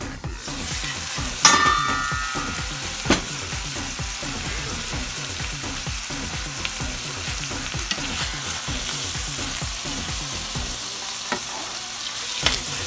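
Food sizzling steadily in hot oil in a frying pan. A utensil strikes the pan with a short metallic ring about a second and a half in, followed by a few lighter taps.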